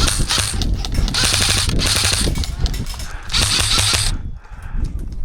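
Airsoft rifle firing in four short bursts of rapid mechanical clatter, each about half a second long, over a low rumble.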